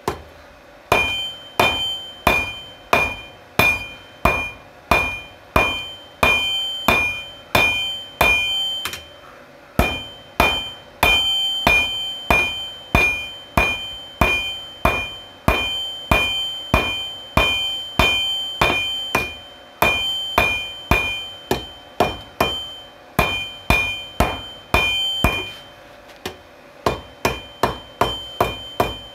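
Forging hammer blows on a 66 lb anvil, about two strikes a second, each ringing with a clear high tone. The hammering stops briefly twice, about ten seconds in and near the end, then resumes.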